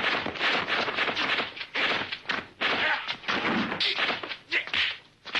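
Kung fu film fight sound effects: a fast run of punch and kick impacts and swishes, about two to three a second, easing off briefly near the end.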